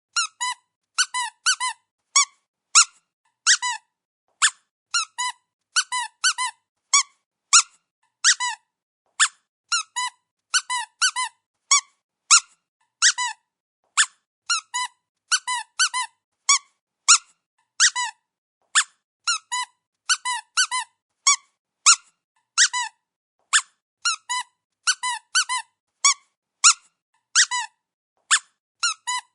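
Dog squeaky toy squeezed again and again: short high squeaks, singly and in quick runs of two or three, with brief silences between.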